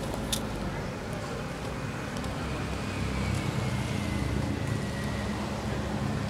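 Steady low outdoor rumble with a faint hum, with one sharp click about a third of a second in and a faint high tone slowly falling in the middle.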